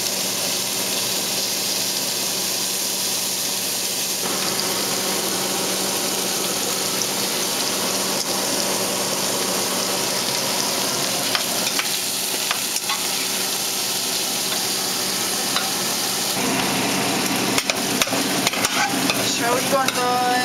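Cubed meat searing in hot oil in a stainless steel pot, sizzling steadily, with the occasional click and scrape of metal tongs against the pot as the pieces are turned.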